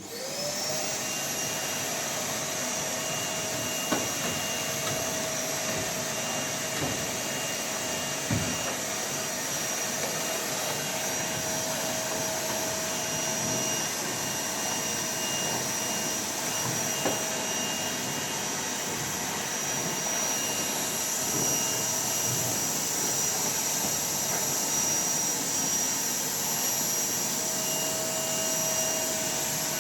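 A motor-driven machine switched on, spinning up within about half a second to a steady whine over a loud rushing noise, with a few light knocks.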